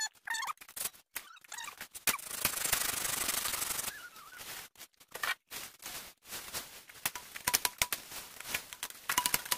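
Cut bamboo pole and dry bamboo leaves rustling, scraping and snapping as the pole is handled and dragged through cleared brush. There is a longer rustle about two to four seconds in, with scattered sharp clicks and a few short high chirps.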